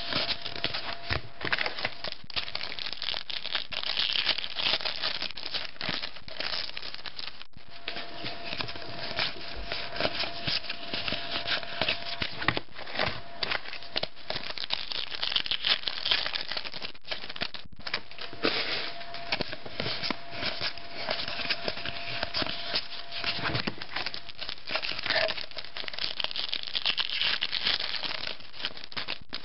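Foil trading-card pack wrappers crinkling and tearing, and cards rubbing and sliding against each other as packs are opened and flipped through by hand.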